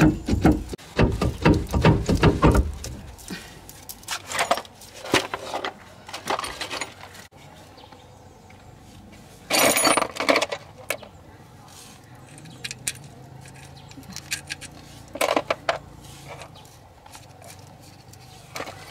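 Metal clinking and knocking from hand tools at a car's rear axle differential housing: a quick run of knocks in the first few seconds, then scattered clinks, with short louder clusters about halfway and again about 15 seconds in.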